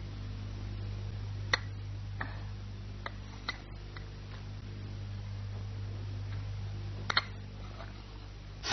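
Porcelain lid of a covered teacup (gaiwan) clinking lightly against the cup: a few sharp clicks spread out, then a quick double click near the end, over a steady low hum.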